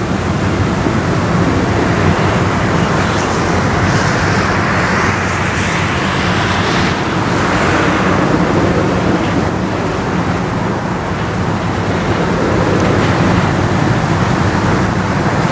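Freight covered hopper cars rolling slowly past on the track, a steady rumbling hiss of steel wheels on rail with a low steady hum underneath.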